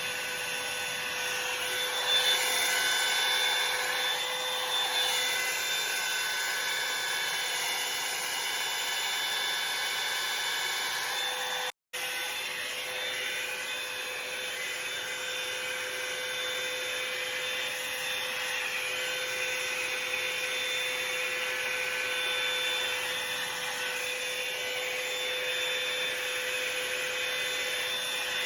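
Revlon hair dryer brush (blow dryer and volumizer) running on its high setting: a steady motor whine over a rush of air, swelling for a moment about two seconds in. The sound cuts out completely for an instant a little before halfway, then carries on unchanged.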